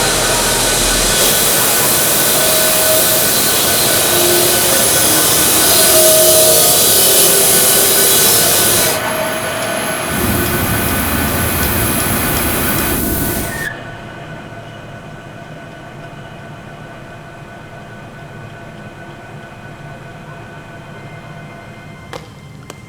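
Loud machine-shop noise of metalworking machinery running and cutting, with several abrupt changes. About fourteen seconds in it drops to a much quieter steady machine hum, with a single click near the end.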